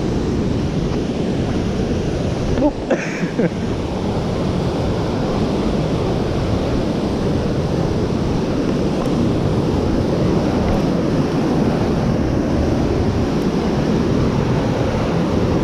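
Steady rushing of whitewater rapids on the Potomac River, with wind buffeting the microphone. A short, sharper sound stands out about three seconds in.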